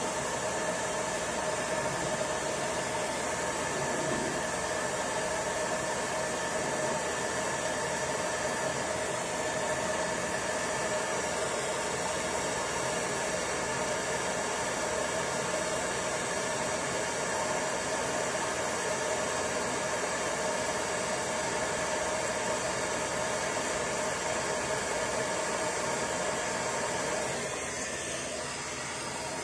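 Handheld electric heat gun blowing a steady stream of hot air, a fan hiss with a steady whine, reheating (reflowing) a processor chip on a circuit board. It turns slightly softer for a moment near the end as the gun is lifted away from the board.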